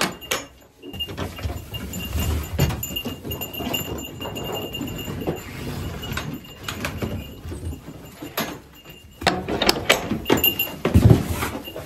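Clicks and knocks of wooden stall gates and latches, with footsteps and rustling on wood shavings as people and goats move about a goat barn; louder handling noise near the end.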